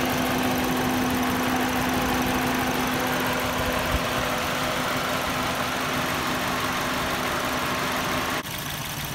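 A 2010 Toyota Yaris engine running at a steady speed, loud and close, with the sound dropping sharply near the end. The engine has a misfire, which is traced to a failed ignition coil on cylinder 2.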